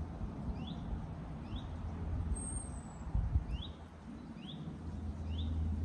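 A small songbird calling from above, a run of short notes that each slide down in pitch, about one a second. A thin, very high whistle comes in about two seconds in, over a steady low rumble.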